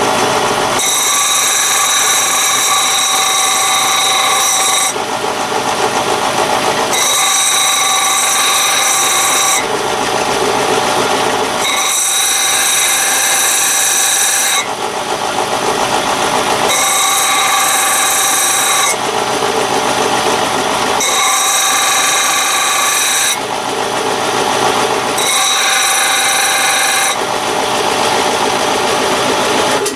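Electric disc sander running while a small brass part and the stainless steel bolt end in it are sanded flat. The sound switches every two to three seconds between a whine with many steady high tones and a plainer grinding noise, as the work is pressed to the disc and eased off. It cuts off at the very end.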